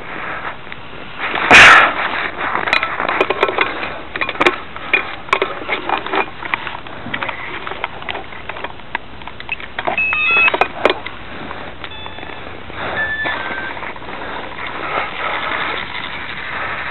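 Handling clicks and knocks while a quadcopter is readied for flight. There are a few short electronic beeps around the middle, and one loud bang about a second and a half in.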